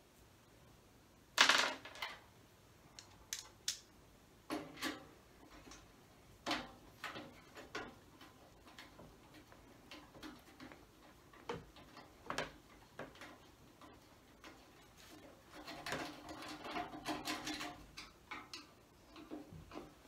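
Metal clicks and knocks of a rack-mount patch panel and its screws being handled and fitted against the metal rails of a network rack. A sharp clank with a brief ring comes about a second in, scattered clicks follow, and there is a longer spell of quick rattling and scraping near the end.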